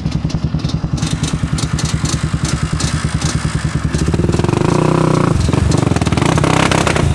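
Quad ATV engine running with a steady pulsing beat, then revving harder and louder from about four seconds in, with scattered knocks and clatter.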